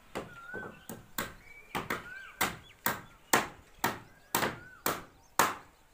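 Hammer blows, about two a second, with the loudest in the middle, as wooden shuttering planks are nailed up on bamboo props for a concrete roof slab.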